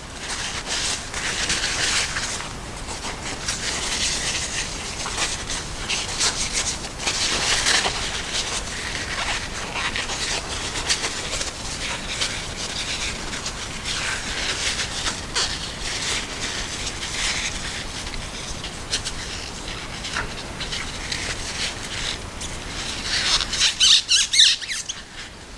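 A paper towel dampened with isopropyl alcohol being wiped and rubbed along the steel blade of a Tangram Vector pocket knife, in a continuous run of scratchy rubbing strokes. The strokes get quicker and louder near the end.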